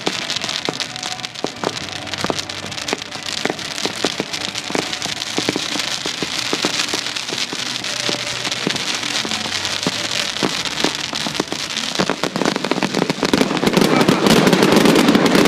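Daytime fireworks crackling over a steady hiss, a dense stream of small pops. About twelve seconds in it grows louder and fuller.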